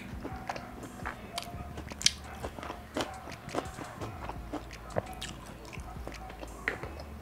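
Close-miked chewing of a mouthful of shawarma wrap, with scattered sharp clicks and crackles from the mouth and from handling the paper-wrapped shawarma and sauce cups.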